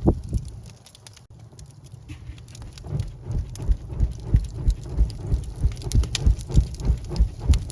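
Wood fire crackling in a fireplace: irregular sharp pops and snaps with low thuds. It is quieter for a second or two near the start, then grows denser and louder.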